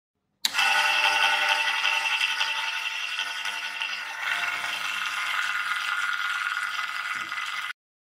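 Washing machine's electric motor running on a bench test, a steady whine of several tones; the motor is working. It starts abruptly about half a second in and stops abruptly just before the end.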